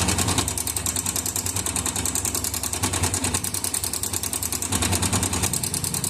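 Yamaha FZ-S V2's single-cylinder engine idling with a fast, even metallic rattle from a loose timing chain. Turning the tensioner bolt with a screwdriver does not quiet it, which marks a faulty tensioner that no longer pushes the cam chain tight.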